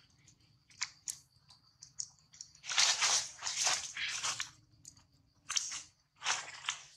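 Dry leaves crunching and rustling in several short bursts, the longest cluster about three seconds in, over a faint steady high-pitched tone.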